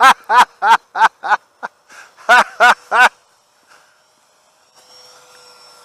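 A man laughing in a run of short, loud "ha" bursts that trail off after about three seconds. Near the end a faint, steady whine comes in.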